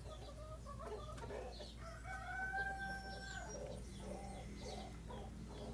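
A rooster crowing once, about two seconds in, with faint clucking around it.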